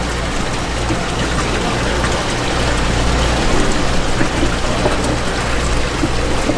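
Steady rush of running water, with a low steady hum underneath.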